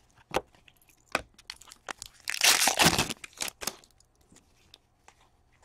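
Hockey trading cards and a foil pack wrapper being handled by hand. Light clicks and rustles, with a burst of crinkling a little over two seconds in.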